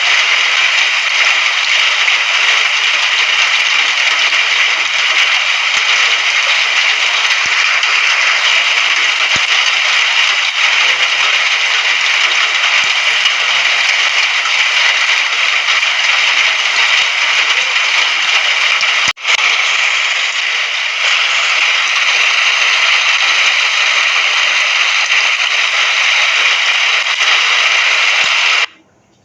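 Steady, dense rain, an even crackling hiss with no thunder. It breaks off for a split second about two-thirds through and drops out briefly at the very end, like the join of a looped recording.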